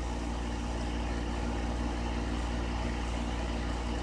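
A steady low hum with a stack of even tones above it, unchanging throughout.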